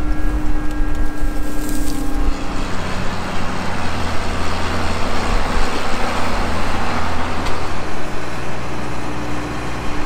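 Farm diesel engines running: first a John Deere 9510 combine's engine runs steady, then a John Deere tractor towing a Rhino rotary stalk mower drives past, its noise building to a peak about six to seven seconds in and easing after.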